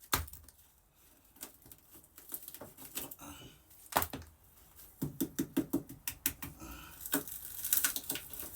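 Irregular clicks and knocks of rotten OSB wood and hand tools being worked and handled, with a quick run of light taps about five seconds in.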